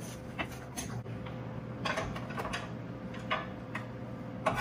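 Irregular light knocks and clicks of a knife on a cutting board as raw chicken breast is cut, about eight in all, over a faint steady hum.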